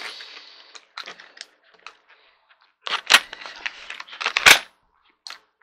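A clear plastic blister pack of screws being cut and pried open with a blade. Scattered small clicks come first, then loud bursts of plastic crackling and crinkling about three seconds in and again around four and a half seconds.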